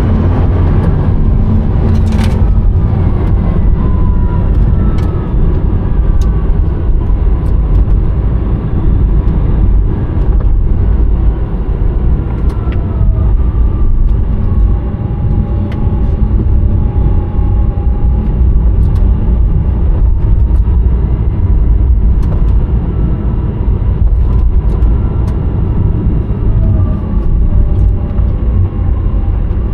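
Rimac Nevera electric hypercar on the move, heard from inside the cabin: a heavy, steady road rumble with a faint electric-motor whine that glides up and down in pitch as the speed changes.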